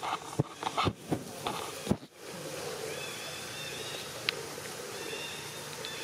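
Sharp clicks and knocks of a plastic cup being handled and drunk from by a monkey, over the first two seconds. After that, a steady outdoor background with short high chirps repeating every second or so.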